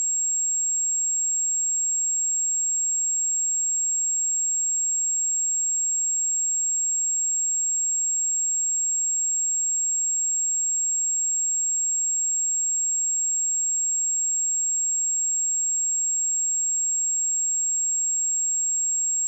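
Steady, continuous 7567 Hz sine-wave test tone: a single high-pitched pure tone held at constant level, used to test speakers or headphones.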